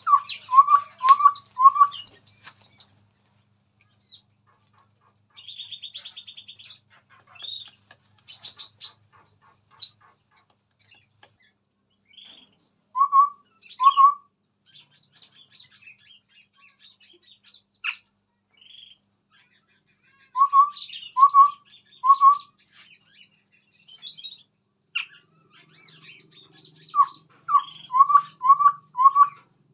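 Chestnut-rumped babbler singing: runs of two to five short, low, upslurred whistles in even succession, repeated several times, with scattered higher chirps and a short rattle in between.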